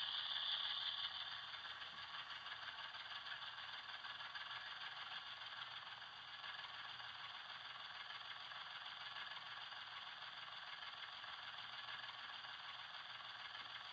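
The sound decoder of an HO scale Union Pacific 7400 diesel locomotive model, playing a diesel engine idling, faint and steady. A hiss is heard at first and fades about a second in.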